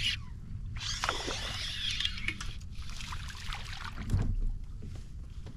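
Water splashing and sloshing beside a kayak in two bursts, with a sharp thump against the hull about four seconds in.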